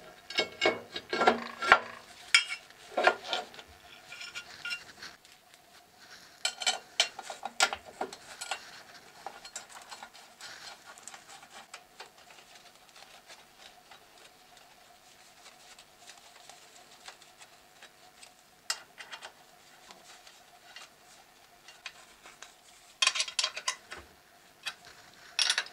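Steel parts of a lathe milling attachment clinking, knocking and scraping as they are set on the cross slide and bolted down. The clatter comes in several bursts, at the start, around seven seconds in and near the end, with quieter handling between. A faint steady hum runs underneath.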